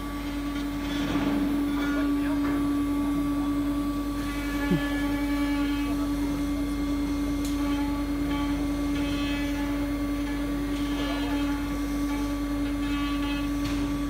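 ATC CNC router's spindle running at a steady high whine while it machines a wooden cabinet door panel, with higher tones fading in and out over it. A short falling squeak comes about five seconds in.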